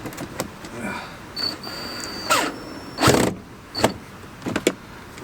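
Power drill running in a few short bursts, driving a screw up into the underside of a shelf, with small clicks and knocks between the bursts.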